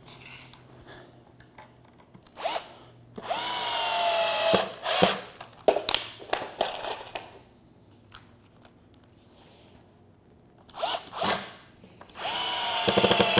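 Cordless power driver sinking 3-inch deck screws into pressure-treated lumber: two long runs of the motor, one about three seconds in and one near the end, each rising in pitch as it spins up and then holding a steady whine, with a few short trigger blips before each.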